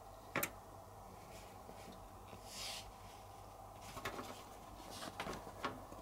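Handling noise from the felt, rubber-backed sound-absorbing blanket around an air conditioner compressor being bent back by hand: a sharp click, a brief rustle of the felt, then a few lighter clicks.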